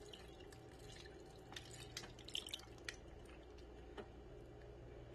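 Faint drips and small splashes of thin marinade poured from a glass bowl into a plastic zip bag of raw chicken drumsticks, over a faint steady hum.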